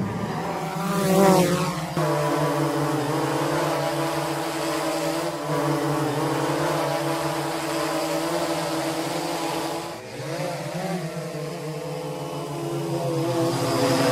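Quadcopter drone motors and propellers buzzing at a steady pitch. The pitch rises with a whoosh about a second in, dips, then rises again near the ten-second mark.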